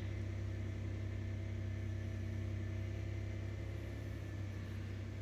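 Car engine idling steadily, a low even hum, left running to charge the car's battery.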